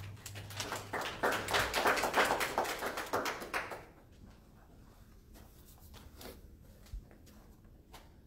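Small audience applauding for about four seconds, then dying away to a few scattered claps and knocks.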